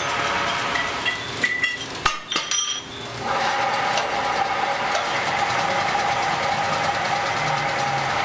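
Metal lathe running steadily with a held tone. Between about one and a half and three seconds in, the running drops away and a few sharp metal clinks come through as the three-jaw chuck is tightened with its key; then the lathe runs steadily again.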